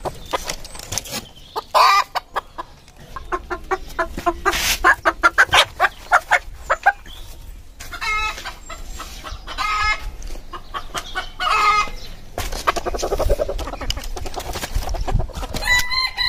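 Mille Fleur bantam chickens clucking and calling: a run of quick clucks in the first half, then several drawn-out pitched calls spaced a second or two apart.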